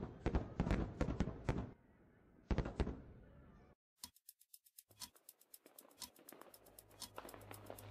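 Fireworks going off: a quick run of sharp bangs, then another pair about two and a half seconds in. After a short dropout a rapid crackling of many small pops follows, with a low hum coming up near the end.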